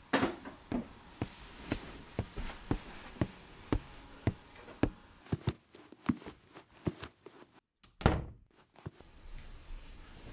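Sharp, evenly spaced knocks, about two a second, turn into an irregular flurry around five to seven seconds in. About eight seconds in, a short swelling rush of noise is the loudest sound.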